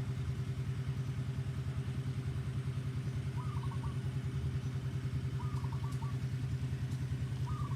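A motor running steadily with a fast, even low pulse, and three short faint chirps about two seconds apart.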